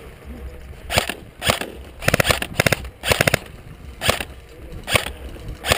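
Airsoft electric rifles firing: single shots with short rapid-fire bursts in the middle, each shot a sharp crack.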